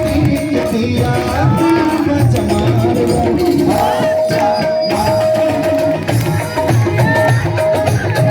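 Live devotional stage music: held melody notes over a steady, rhythmic hand-drum beat, with no singing.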